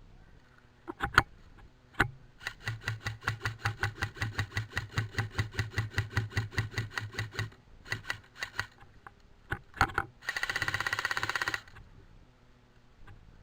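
Airsoft gun firing: a fast, even run of sharp clicks, about six a second for roughly five seconds, then a short full-auto burst of about a second and a half near the end.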